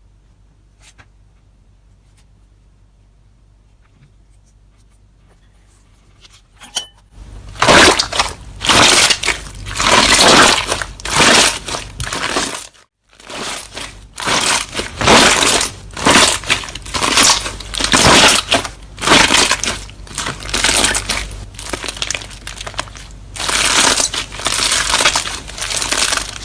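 Loud crunching and crackling of objects being crushed, in repeated bursts about a second long, after a quiet start with only a faint hum.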